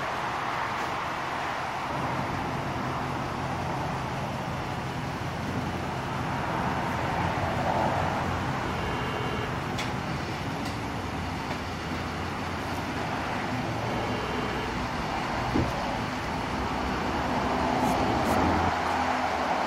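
Dodge Ram pickup's engine idling steadily, a low hum under an even hiss, with a single brief click about three quarters of the way through.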